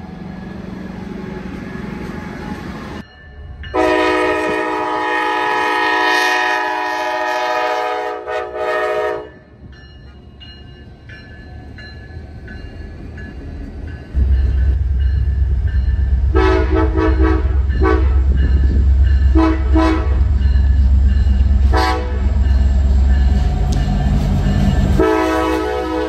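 Train horn sounded as a salute: one long multi-note blast of about five seconds, then, over the loud low rumble of the train passing, several short toots and a final blast starting near the end.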